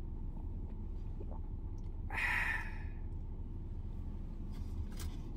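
A man's breathy sigh, about a second long, comes about two seconds in, just after a sip of a smoothie through a straw. A low steady hum from the car's cabin runs underneath.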